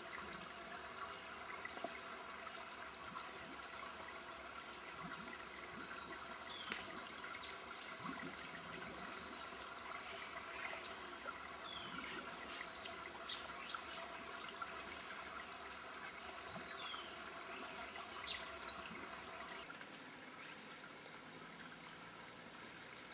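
Forest ambience of many short, high bird chirps in irregular succession over a faint steady insect hum. About twenty seconds in, a steady high insect trill starts and carries on.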